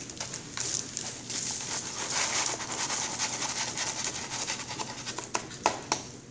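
McDonald's paper fries carton rustling and crinkling as it is handled and shaken to tip the fries out onto a paper wrapper, with a few sharp ticks near the end.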